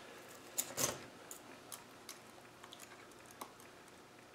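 Faint handling of a plastic tub of Vaseline as fingers dip into it: a few scattered small clicks and soft squishy noises, the sharpest click just under a second in.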